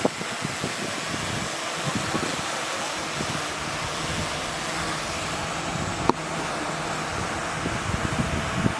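Earth-moving machinery running steadily, with wind noise on the microphone and a single sharp click about six seconds in.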